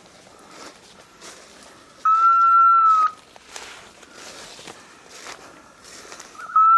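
A dog whistle blown in long steady blasts, one about two seconds in and another starting near the end, each dipping slightly in pitch as it tails off, the hunter's signal to his pointing dog. Between the blasts, dry leaves rustle and crunch underfoot.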